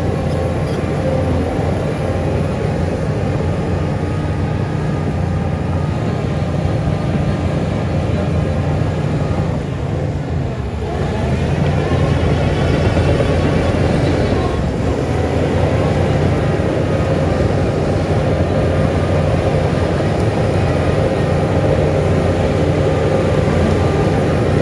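Heavy diesel earthmoving machinery running under load. The engine note dips briefly about ten seconds in, then picks up louder and stays there.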